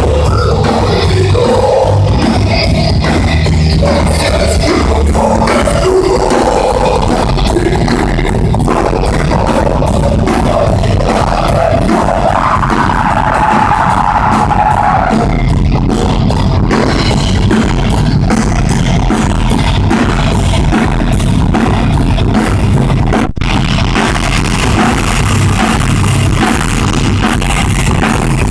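Heavy metal band playing loud and fast: distorted electric guitars over a drum kit with rapid hits, a brief drop about 23 seconds in before the band carries on.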